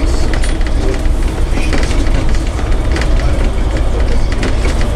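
Volvo B5LH hybrid double-decker bus running along a concrete guided busway track, heard from inside: a loud, steady low rumble with frequent irregular knocks and rattles as it rides the guideway.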